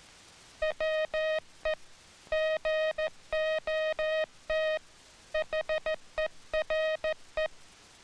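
Morse code sent as a keyed single-pitch tone, spelling "WE GOT HERE": short dits and long dahs with tight spaces inside each letter, longer gaps between letters, and still longer pauses between the three words.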